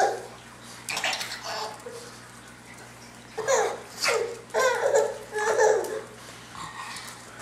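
Baby laughing and squealing in a string of short, breathy bursts, most of them clustered in the middle of the stretch.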